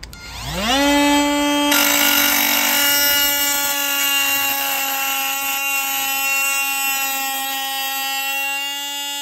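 Cordless oscillating multi-tool starting up with a whine that rises in pitch, then running at a steady high whine that sounds like a dentist's drill. About two seconds in, a gritty grinding joins it as the blade bears on a very hard steel screw. The blade, made for wood and plastic, is not cutting the screw, only blunting its teeth.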